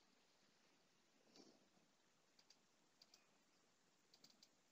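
Near silence: room tone with a few faint, quick clicks, mostly in pairs, and a soft muffled thump about one and a half seconds in.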